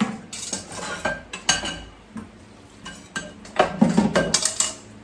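Kitchenware clattering: a string of knocks and clinks of dishes and utensils, growing busier near the end.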